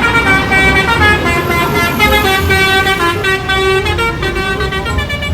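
Bus 'telolet' horn playing a tune of quickly changing notes, over a low pulsing rumble.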